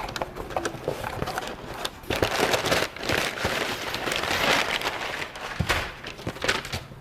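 Packaging being handled and opened: crinkling and rustling with many sharp clicks, busiest in the middle.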